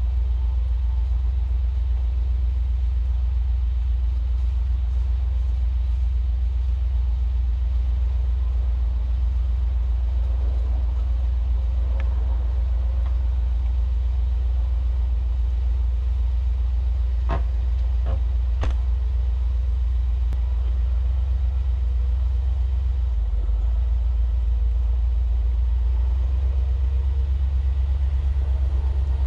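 Steady low rumble of a pickup truck driving, heard from inside the cab. A few sharp clicks come a little past halfway.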